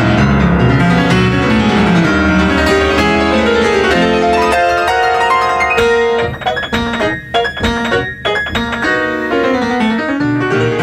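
Upright piano played loudly in a fast classical passage: dense running notes in the bass and middle for the first half, then from about six seconds in, lighter, separated notes with short gaps between them.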